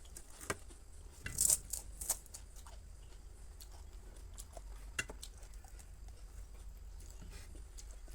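Mouth sounds of eating crisp pani puri: scattered crackles and crunches of the hollow fried shells, with a burst of louder crunching about one and a half to two seconds in and a single click about five seconds in.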